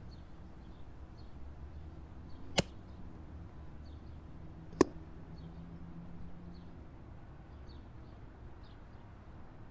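An air rifle shot at a chipmunk: two sharp cracks about two seconds apart, the second louder, over a steady low outdoor hum.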